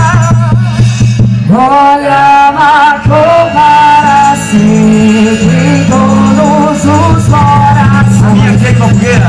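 Loud amplified music with a singer's voice carrying the melody over steady bass notes, with rattle-like percussion.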